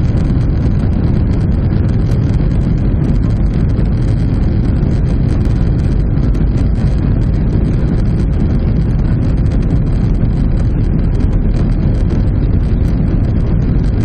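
Steady, loud rumble inside the passenger cabin of a Boeing 737-800 from its CFM56-7B turbofan engines and rushing air, with no change in level.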